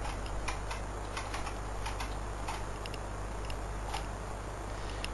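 Keys being pressed on a BBC Micro keyboard: scattered, irregularly spaced clicks as a command is typed, over a steady low hum.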